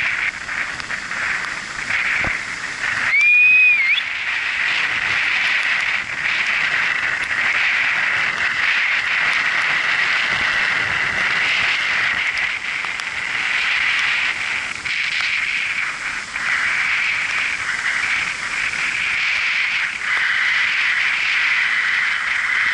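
Steady rushing noise of ocean surf breaking on a sandy beach, with a short whistle that rises and falls about three seconds in.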